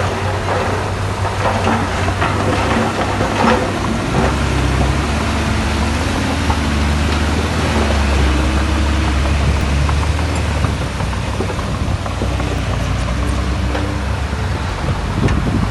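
Diesel engine of heavy earthmoving machinery running in a steady low drone, with metallic clanks and knocks in the first few seconds.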